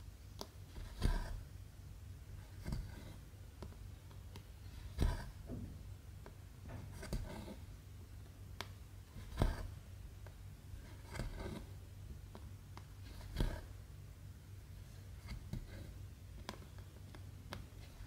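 Needle and cotton embroidery thread being poked and pulled through 14-count cross-stitch fabric: soft rasps and rustles, with a louder pull about every four seconds, over a low steady hum.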